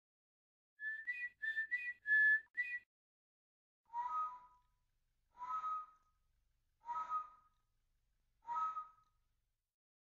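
Human mouth whistling, overblown so that overtones sound: a quick run of about six short notes, then four separate notes about a second and a half apart, each holding two pitches at once.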